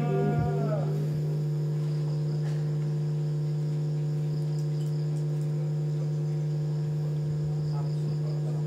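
Steady electrical hum and buzz from an idle PA system, with the reciter's last sung note trailing off in its first second.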